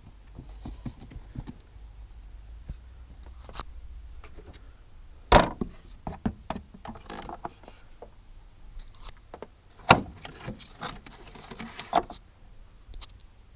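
Scattered knocks and clicks of handling hard objects, the loudest about five seconds in and again about ten seconds in.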